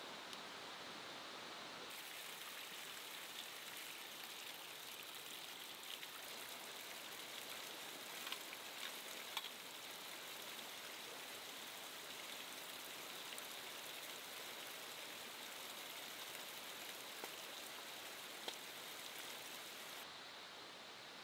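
Steady, faint hiss of water, with a few small ticks about eight or nine seconds in.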